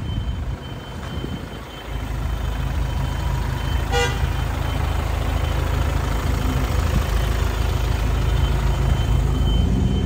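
Steady low rumble of a vehicle engine running close by, with a single short beep, like a horn toot, about four seconds in.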